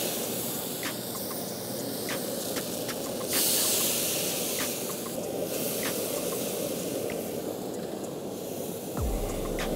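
Marinated chicken thighs sizzling as they are laid one by one onto a hot pellet-grill grate with metal tongs. The tongs click against the grate, and there is a louder hiss about three seconds in.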